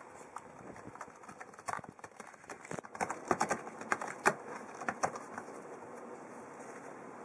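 A cat's claws and paws picking and scratching at a corrugated cardboard scratcher: a run of irregular sharp clicks and scrapes, densest in the middle, then dying away.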